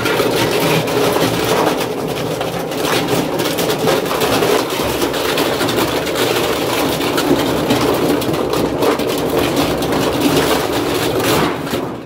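Scrapped top-load washing machine running with loose scrap thrown into its drum, making a loud, steady grinding clatter full of knocks. It starts abruptly and cuts off near the end.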